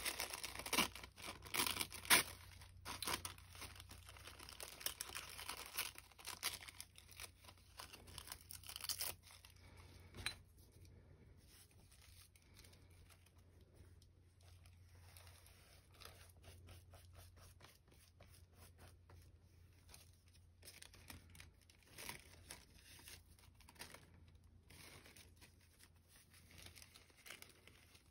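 Thin, translucent gelli-printed paper being torn and crinkled by hand in short crackly bursts. After about ten seconds it gives way to quieter, scattered brushing and light handling as the paper is glued down onto the sketchbook page.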